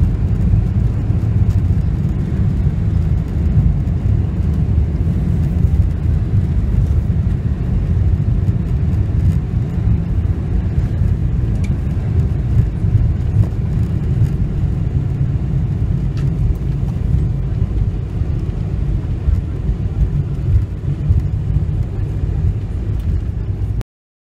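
Steady low rumble heard inside the cabin of a Boeing 747-400 rolling out on the runway after touchdown, with its ground spoilers raised. It eases slightly about three-quarters of the way through and cuts off suddenly near the end.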